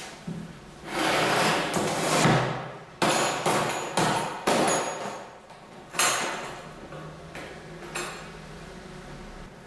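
Hard plastic rifle case handled on a concrete floor: a scraping rustle, then a run of sharp plastic clacks over about three seconds as its latches are snapped open, with a last lighter click near the end.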